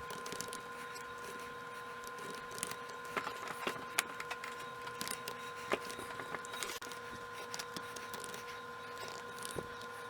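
Scattered light clicks and taps, irregular and several seconds apart, over a steady high-pitched electrical hum.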